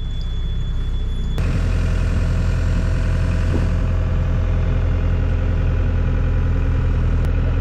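A low hum, then about a second and a half in the diesel engine of a tracked mini excavator comes in suddenly and runs steadily.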